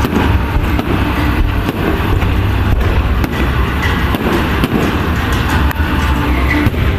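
Firecrackers and fireworks going off in a dense, irregular run of sharp bangs over a steady low rumble.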